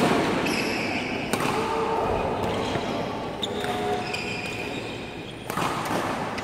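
Badminton rackets striking shuttlecocks in a large indoor hall, with a few sharp hits standing out: one at the start, one about a second in and one about five and a half seconds in.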